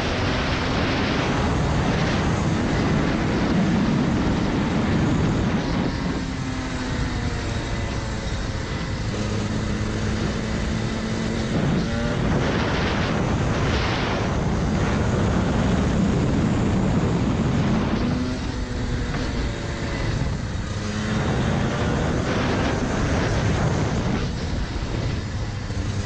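2017 Rotax Max Senior 125 two-stroke kart engine, fitted with a restrictor, running at speed on track: its note climbs on the straights and falls away each time the driver lifts for a corner, several times over.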